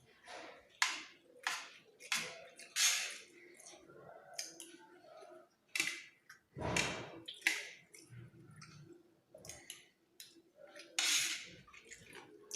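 Close-miked eating: a small spoon clicking and scraping against a plate of fried rice, with chewing, in short irregular strokes. A heavier, duller sound comes about seven seconds in.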